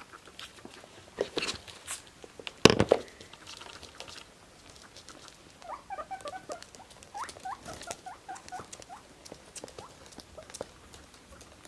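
Guinea pigs' feet pattering and clicking on a wooden floor, with one sharp knock about three seconds in. Midway through, a guinea pig gives a run of short, rising squeaks.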